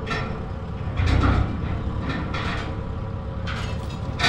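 Telehandler engine running steadily at a low rumble, with a few brief metallic rattles and clanks scattered through.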